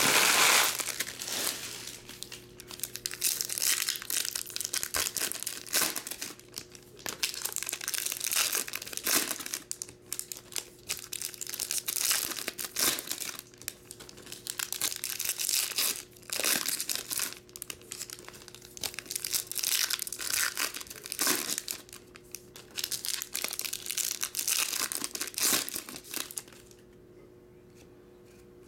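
Foil wrappers of 2021 Bowman baseball card packs crinkling and tearing as the packs are handled and torn open, in repeated irregular bursts that stop about two seconds before the end.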